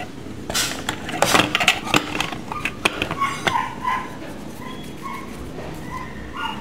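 Plastic toy car dough extruder being handled: sharp clicks and knocks of its plastic parts, then a string of short, high squeaks.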